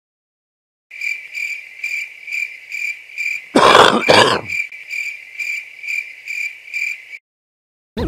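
A high cricket-chirp sound effect pulsing about three times a second. About halfway through comes a loud two-part noisy burst, a cartoon pig's snort.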